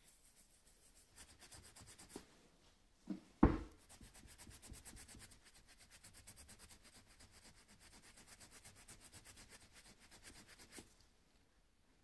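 A cloth rubbing quickly back and forth over a small cast brass pendant, polishing it with brass polish; the faint rubbing runs from about four seconds in and stops shortly before the end. A single sharp knock, the loudest sound, comes just before the rubbing starts.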